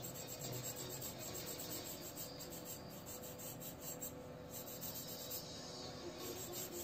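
Faint, quick rasping strokes of a pencil and a stiff flat brush working charcoal over drawing paper.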